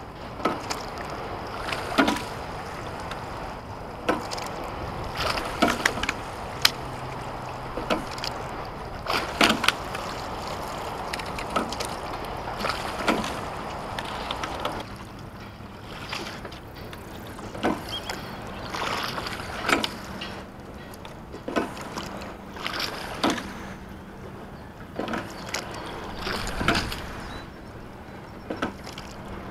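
A rowing shell under way: water rushing along the hull, with a sharp knock from the oars at each stroke, about every one and a half seconds.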